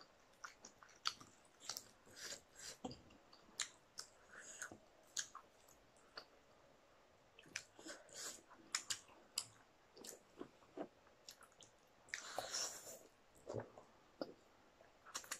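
Faint, close-miked eating sounds: chewing and biting of chicken and noodles, heard as scattered soft wet clicks and smacks of the mouth, with a longer slurp of noodles about twelve seconds in.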